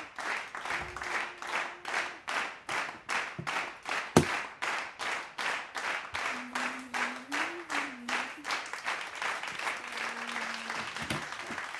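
Applause sound effect: steady rhythmic clapping at about three claps a second. A single sharp knock comes about four seconds in.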